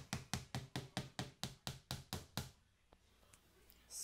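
A Dyson DC14's round filter being tapped: a quick, even run of about a dozen sharp knocks, about five a second, that stops after about two and a half seconds.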